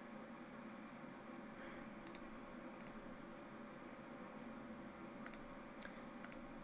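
A computer mouse clicking, about five short sparse clicks, over a faint steady room hum.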